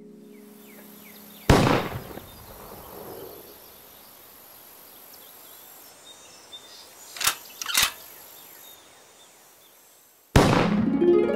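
A single gunshot about a second and a half in, then quiet outdoor background with faint chirps. Two sharp clicks about half a second apart follow, and plucked harp-like music cuts in abruptly near the end.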